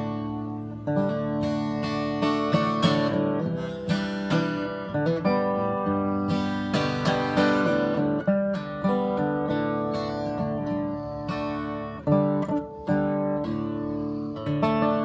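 Acoustic guitar strummed in chords, each strum ringing on into the next, with a hard accented strum about twelve seconds in.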